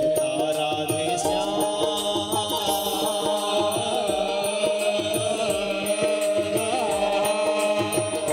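Devotional Krishna bhajan music: a long held melody tone with other melodic lines over a steady percussion beat.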